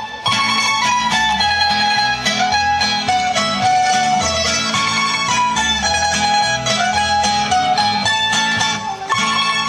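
Folk dance music played on plucked string instruments: a lively tune with a melody over a steady bass beat.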